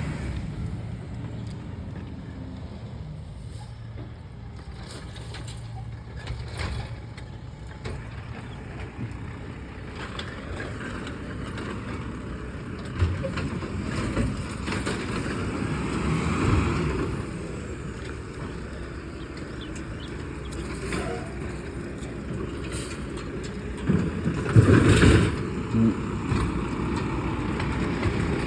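A large vehicle's engine running steadily, with scattered knocks and a louder burst of noise about 25 seconds in.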